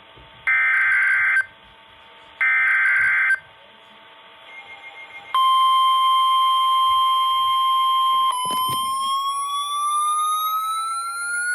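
NOAA Weather Radio Emergency Alert System signalling. Two short, loud bursts of the warbling SAME header data tones, each about a second long, come in the first few seconds. About halfway through, the steady 1050 Hz weather radio alert tone starts, and near the end it gives way to a tone that rises steadily in pitch.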